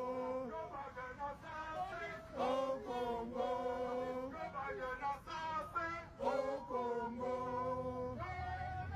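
Protesters singing a chant together, a repeated refrain of short phrases ending in long held notes.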